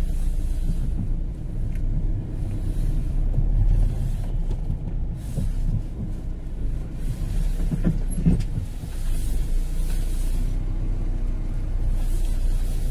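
Car engine and road rumble heard from inside the cabin while driving slowly, with a brief knock about eight seconds in.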